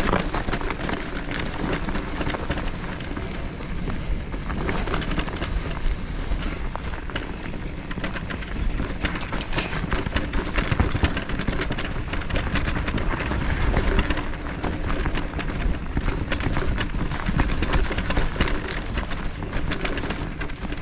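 Electric mountain bike being ridden over a rough, muddy trail: a continuous dense rattling and clatter of the bike with a steady rushing noise underneath.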